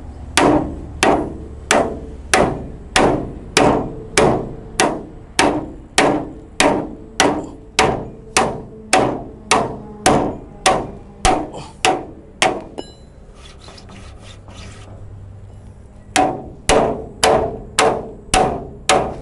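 A hammer beating the bent rear edge of a Daihatsu Hijet S75 truck's steel bed back into shape, at about two blows a second, each with a short metallic ring. The blows stop for about three seconds past the middle, then start again.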